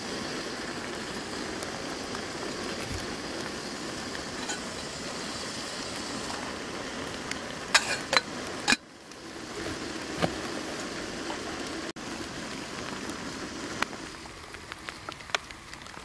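Water boiling in an aluminium camping kettle on a gas burner, a steady bubbling rush. About halfway through, the lid clinks as it is lifted and put back. The sound goes quieter near the end.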